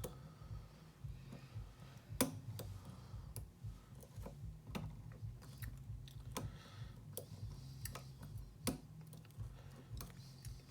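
Steel hook pick clicking against the pins inside a custom challenge lock held under tension: irregular sharp clicks, roughly one a second, over a low steady hum. The lock is in a deep false set.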